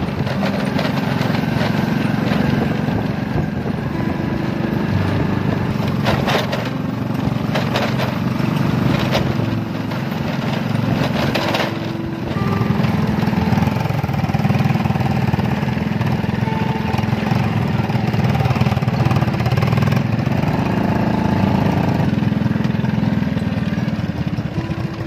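Small motorcycle engine running steadily while riding along a rough farm track, its pitch rising and falling a little with the throttle. A few brief rattles come about six and eleven seconds in.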